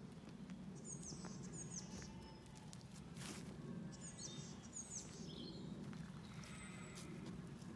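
A songbird sings short, high, hooked chirping phrases, once about a second in and again around four seconds in. Underneath is a steady low rustle and a few light ticks of footsteps on a gravel track.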